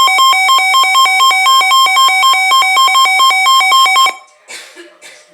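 Loud electronic alert alarm of a weather radio receiver, a buzzy two-tone warble switching rapidly between pitches, that cuts off about four seconds in. Two brief noises follow.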